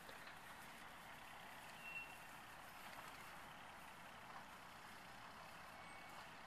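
Near silence: faint steady outdoor background noise, with two brief, faint high beeps, one about two seconds in and one near the end.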